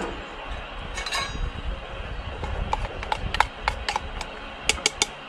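A run of about ten sharp clicks and clinks of hard objects, several with a brief ringing tone, over a steady low rumble. They come closer together in the second half.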